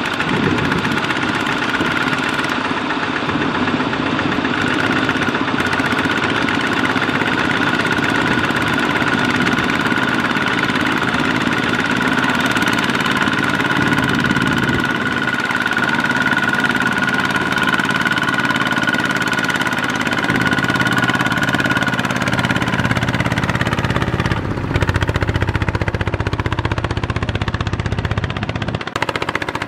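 Single-cylinder Kubota ZT140 diesel engine of a two-wheel walking tractor running steadily under load as it hauls a trailer of rice sacks through sticky mud. The sound turns deeper about three-quarters of the way through.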